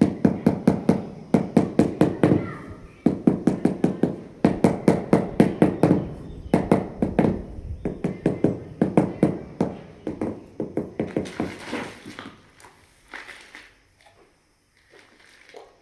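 Rapid, even tapping on a floor tile, about four knocks a second in several runs with short pauses, settling the tile into its mortar bed. The taps grow fainter and sparser near the end.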